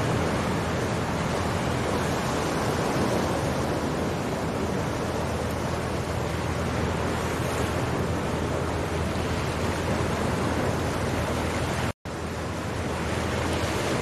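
Steady rush of choppy sea waves and wind. Near the end the sound cuts out for a split second, then resumes.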